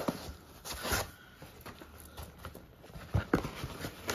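Hands rustling and scraping white foam packing sheets inside a cardboard shipping box, with a few short knocks, the loudest a pair about three seconds in.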